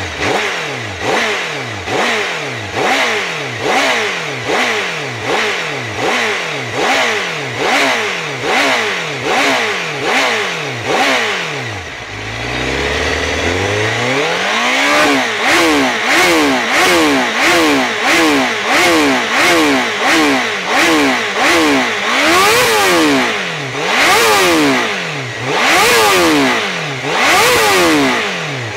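Honda CBR1000RR-R SP's inline-four engine through an Akrapovič exhaust, revved in neutral with the throttle blipped over and over. Quick short blips come about one and a half a second at first. About twelve seconds in the engine drops briefly toward idle, then the revs climb higher, about one a second, and turn into slower, longer, louder pulls near the end.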